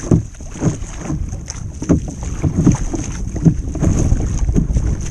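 Wind buffeting the microphone and water slapping against the hull of a fishing kayak at sea, in irregular low thumps over a steady rumble.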